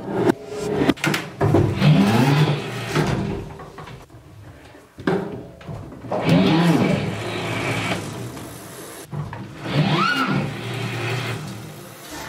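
Broken Brose mid-drive motor of an electric cargo bike whirring up and falling away in about four separate bursts as the crank is turned. The motor is defective, which the owner puts down to its internal drive belt being weak under high torque.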